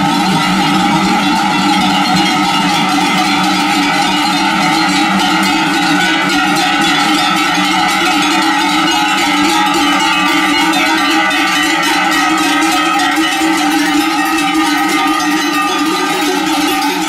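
Many cowbells on a walking herd of cattle, ringing together steadily without a break.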